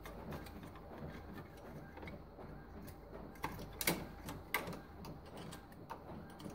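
Faint scraping and clicking of a thin sheet-metal plate being wiggled and pried loose from its hooks in the plastic chassis of an Epson XP-342 inkjet printer, with a handful of sharper clicks in the second half.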